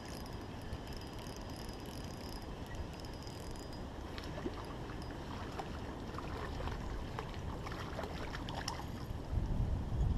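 Wind rumbling on the microphone, with small splashes and clicks from a hooked fish being drawn in at the surface. A louder gust of wind comes near the end.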